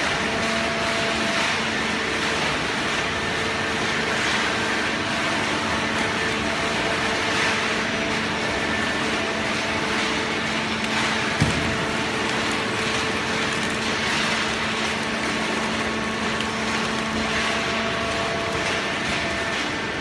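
Fully automatic horizontal hydraulic cardboard baler running: a steady machine hum of several held tones over even mechanical noise, with a single short knock a little past halfway.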